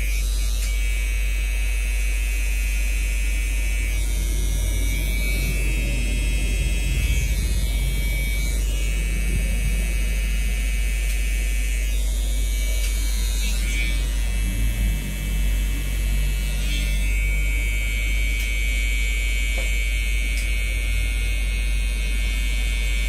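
Electric hair trimmer running with a steady buzz as it trims the short hair around the ear and nape, its tone shifting every few seconds as the blade is moved over the hair.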